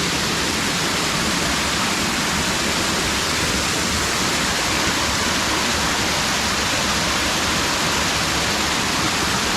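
Stream water flowing over a bedrock channel, a steady, loud rushing hiss with no change throughout.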